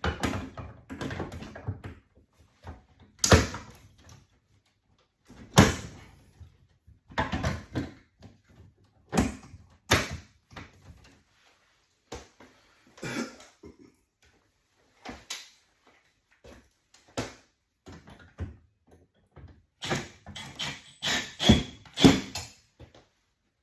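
Metal electrical panel cover being handled and fitted: scattered knocks, clanks and rattles with short quiet gaps, and a quick cluster of sharper knocks near the end.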